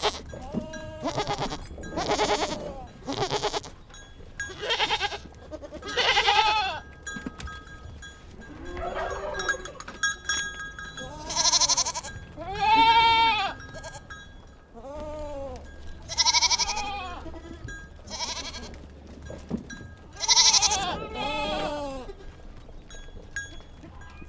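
Goats or sheep bleating over and over, a dozen or so calls at different pitches from several animals, some long and quavering.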